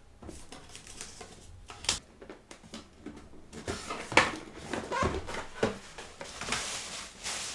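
Handling noise from PC-building parts: scattered clicks and knocks, the loudest about four seconds in, with rustling near the end.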